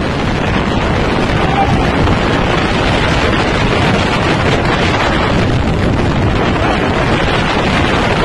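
Tornado winds blasting across the phone's microphone: a loud, unbroken rush of wind noise.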